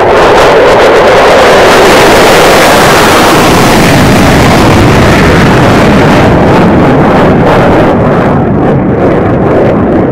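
F-16 Fighting Falcon jet engine noise as the jet climbs away overhead: a loud, steady roar that eases a little near the end.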